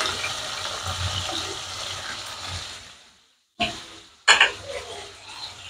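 Prawns sizzling as they fry in hot oil in a wok, a steady hiss. About three seconds in the sound fades out for about a second, then comes back with two sharp clicks.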